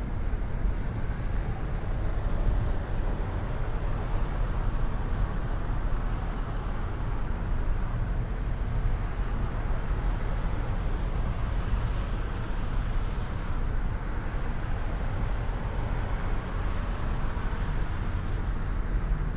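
Steady road noise of a car driving on snowy city streets: a low engine and tyre rumble with the sound of other traffic, swelling and fading gently now and then.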